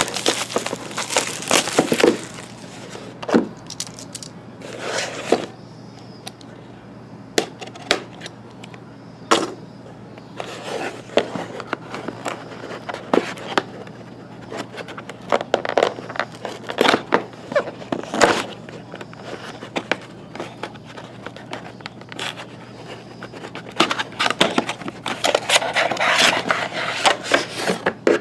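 A sealed trading card hobby box being opened and handled by hand: irregular rustling, scraping and tapping of cardboard and plastic wrap, with sharp clicks here and there, over a faint steady hum.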